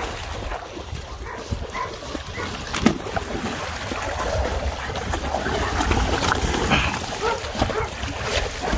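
Dogs swimming and splashing in a pool, with a dog giving short vocal sounds now and then.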